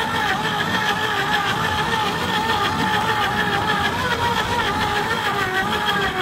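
Electric deep-drop fishing reel's motor running steadily with a whine whose pitch wavers slightly.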